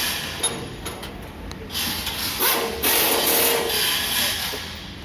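Factory assembly-floor noise: hissing bursts of air over a steady machinery hum, loudest in the middle.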